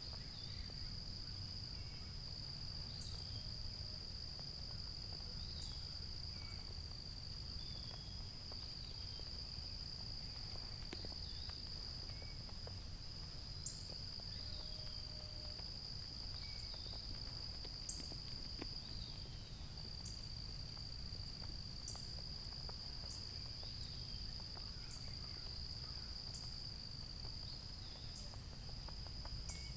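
Summer evening insect chorus: one continuous high, even trill, with scattered short high chirps over it and a faint low rumble beneath.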